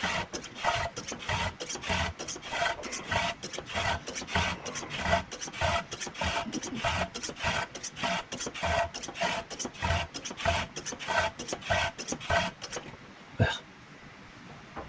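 Hand-operated fluid transfer pump being worked in quick, even strokes, about three a second, pushing gear oil into a Jaguar Mk II rear differential; the pump is drawing in air, which the owner blames on its poor seal. The pumping stops near the end, followed by a single knock.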